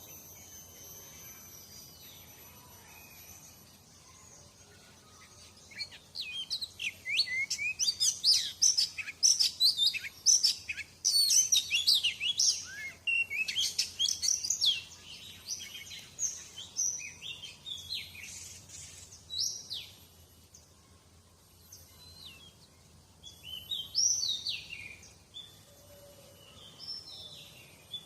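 Oriental magpie-robin singing a fast, varied run of whistled and chirping notes. The song starts about six seconds in, is loudest over the following several seconds, thins out, then comes back in short phrases near the end.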